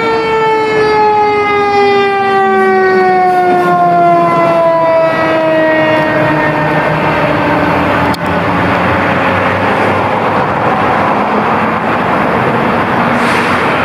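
A fire engine's mechanical Q siren winding down, its pitch falling slowly for about eight seconds. Then loud engine and road noise from the passing apparatus takes over.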